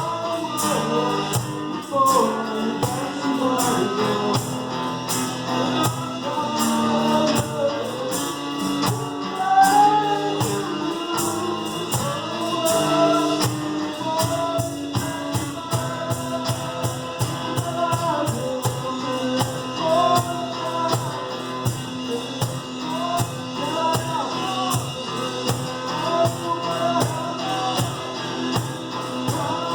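Live acoustic duo playing a rock song: a voice singing over acoustic instruments, driven by a steady, quick percussion beat.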